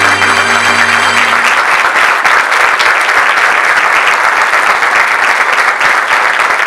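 Audience applauding, with the last notes of the music dying away in the first second and a half.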